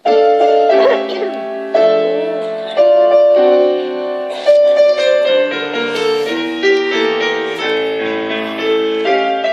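Grand piano playing slow sustained chords, a new chord struck about every second and left ringing.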